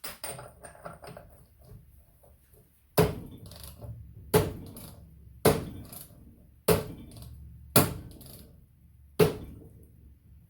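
Six hard hammer blows on a wrench fitted to a large engine bolt, each with a short ringing decay, spaced about a second apart: an attempt to shock the stuck bolt loose without an impact gun. Faint clatter of tools comes first.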